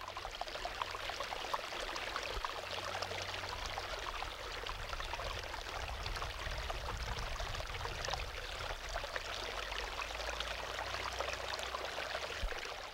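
Running water of a small creek trickling and babbling over rocks, steady throughout.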